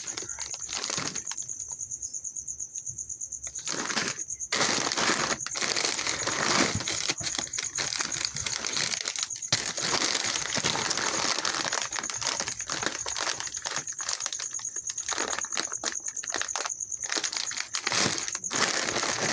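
Plastic snack bags crinkling and rustling as they are handled, a dense, irregular crackle that grows thicker about four seconds in. A steady high whine runs underneath.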